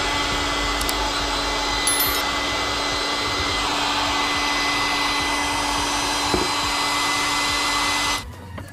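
Electric heat blower (hot-air gun) running steadily, a rush of air with a steady whine, switched off near the end.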